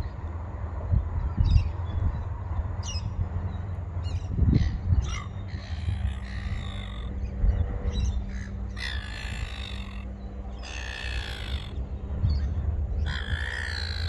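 A crow cawing: three long, harsh, drawn-out calls of about a second each in the second half, with a few short calls from other birds earlier, over a low rumble.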